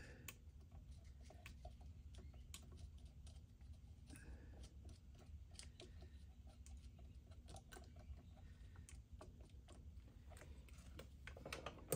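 Near silence: faint room tone with a low hum and scattered small clicks and taps from handling, one a little sharper near the end.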